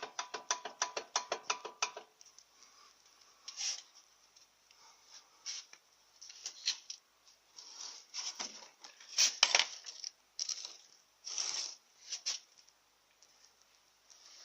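Front brake calipers of a first-generation Lada Kalina knocking and rattling. A fast, even run of clicks comes first, then irregular sharp knocks. The owner blames this on play in the caliper guide pins, though he notes it sounds much like a worn-out ball joint.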